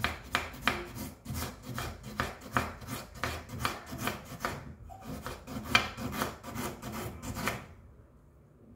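Knife slicing ginger finely on a chopping board: a steady run of quick scraping cuts, about three or four a second, that stops near the end.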